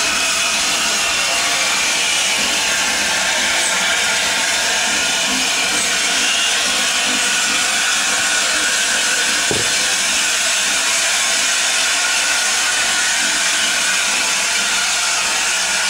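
LNER A4 class steam locomotive 60019 Bittern letting off a loud, steady hiss of steam as it moves slowly in reverse, with one brief low thump about halfway through.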